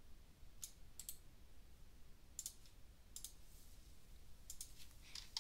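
Computer mouse clicks, a few sharp clicks about a second apart with some in quick pairs, then a closer run of key presses on a keyboard near the end.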